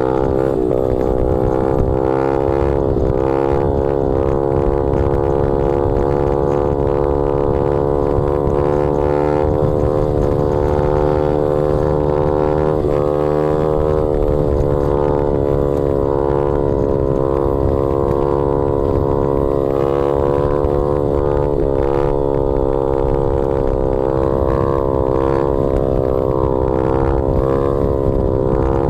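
Honda Z50R pit bike's single-cylinder four-stroke engine, fitted with a big-bore kit, running under way at steady revs. The pitch holds nearly constant, with small rises and dips as the throttle shifts.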